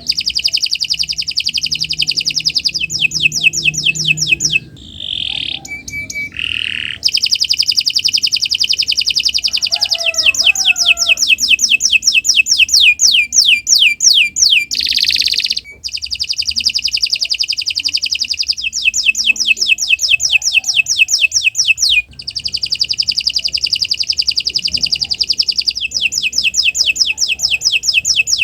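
Domestic canary singing a long song of fast repeated trills, phrase running into phrase, with a few short breaks.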